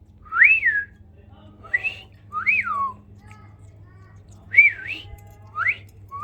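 A pet bird whistling: about half a dozen short, clear notes, each rising and falling in pitch.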